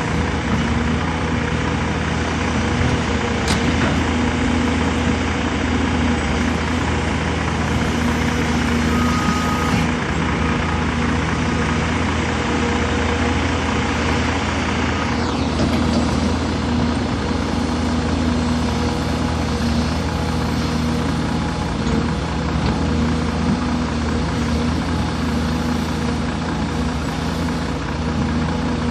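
Caterpillar 336 hydraulic excavator's diesel engine running steadily while it works, loading a truck.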